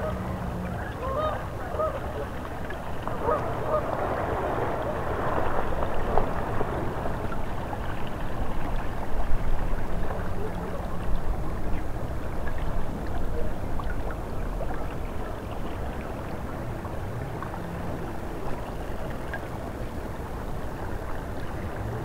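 Geese honking in a string of short, repeated calls, thickest in the first six seconds, over a steady rush of wind and river water.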